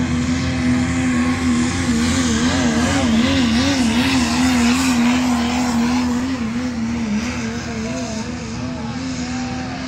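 Diesel engine held at high revs under full load during a pull. From about two seconds in its note wavers rapidly up and down for several seconds, then it steadies and slowly fades.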